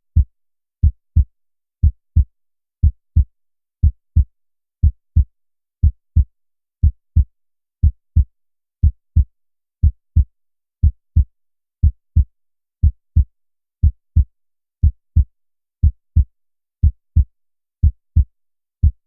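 Heartbeat sound effect: a steady lub-dub of two low thumps close together, repeating about once a second.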